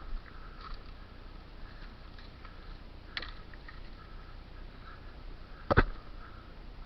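Two sharp knocks over faint background: a light one about three seconds in and a much louder one near the end.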